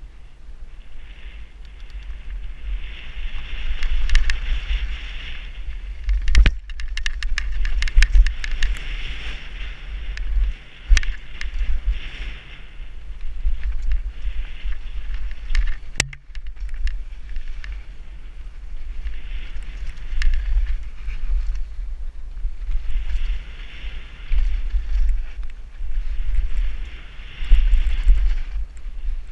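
Mountain bike riding down a dirt downhill trail, heard from a helmet-mounted camera: tyres rolling and hissing over dirt and gravel, with sharp clicks and knocks from the bike over bumps, a cluster of them about six to nine seconds in and a single hard one near the middle. Wind buffets the microphone throughout as a low rumble.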